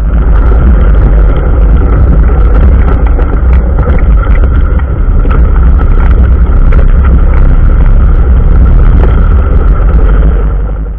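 John Deere 6420 tractor's four-cylinder diesel running under way, picked up at very close range from the bonnet, loud and heavy in the low end with a steady scatter of rattling clicks.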